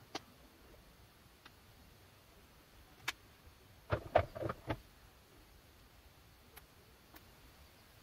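A clear plastic food container and small items being handled on a wooden table: a few isolated clicks, then a quick cluster of four or five knocks about four seconds in.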